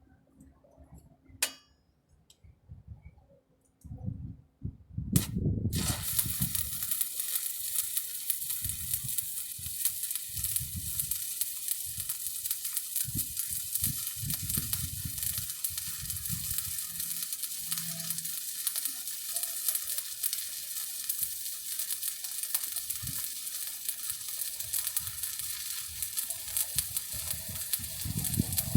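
Stick (shielded metal arc) welding with a 7018 electrode: after a few faint clicks, the arc strikes about five seconds in and then crackles and sizzles steadily as the bead is run.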